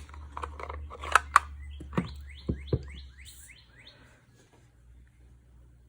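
Several sharp clicks and knocks of craft supplies being handled, typical of stamp pads and a rubber stamp being picked up, inked and pressed. Over them, about two seconds in, a bird sings a quick run of about six falling chirps.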